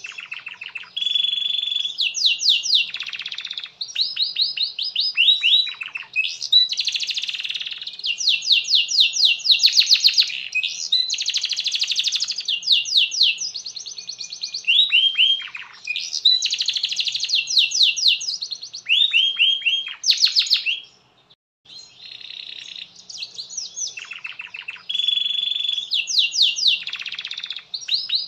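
Canary singing a long, continuous song of fast trills and rolls, one phrase running into the next, with a short break about three-quarters of the way through.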